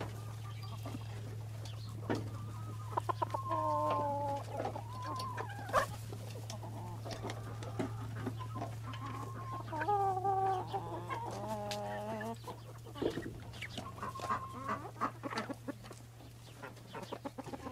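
A flock of hens clucking as they feed, with longer drawn-out calls around four seconds in and again from about ten to twelve seconds in.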